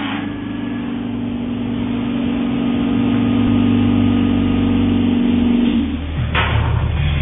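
A motor running with a steady hum. About six seconds in, the hum shifts to a lower pitch.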